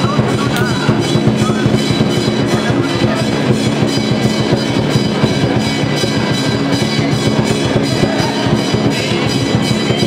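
Loud drumming with music, a fast, even beat over a sustained ringing din.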